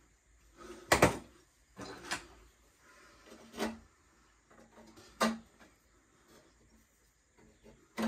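Sharp wooden knocks, five of them at irregular gaps of one to three seconds, the first the loudest. They come from a loose timber upright bumping against the edges of pine shelves as it is handled into place.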